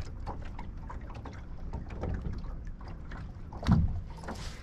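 Small waves lapping against a fishing boat's hull, with wind, a steady low rumble and many small splashes and ticks. A single loud thump comes a little before the end.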